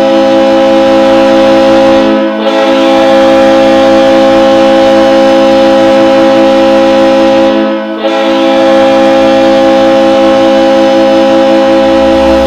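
Tulsa Oilers hockey goal horn: a loud arena air horn holding a steady chord of several tones in long blasts. It breaks off briefly about two seconds in and again about eight seconds in.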